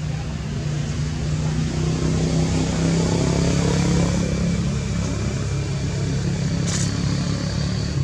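A motor vehicle's engine running steadily, its hum growing louder toward the middle and easing a little after, with one sharp click about seven seconds in.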